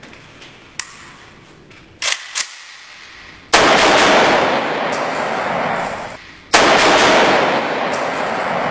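AK-47 rifle fired on full automatic in two long bursts of rapid shots, each lasting about two and a half seconds. Two short sharp clacks come shortly before the first burst.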